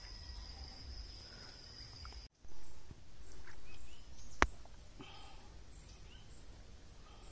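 A steady high-pitched insect trill over a low rumble stops abruptly about two seconds in. After it come wind rumble, a few short bird chirps and one sharp click about four seconds in.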